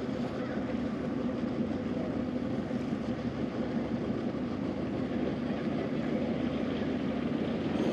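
A motor droning steadily, a low even hum over a rushing noise.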